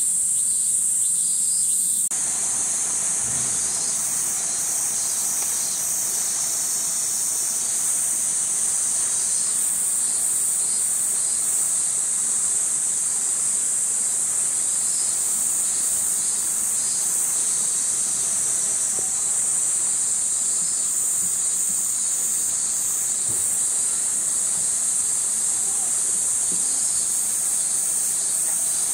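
A chorus of cicadas keeps up a steady, high-pitched drone, with a quicker pulsing insect call layered over it. A wider background hiss grows louder about two seconds in.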